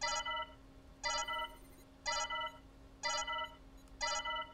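Starship computer auto-destruct alarm: an electronic, ringtone-like beep about half a second long, repeating about once a second with the countdown, over a faint steady low hum.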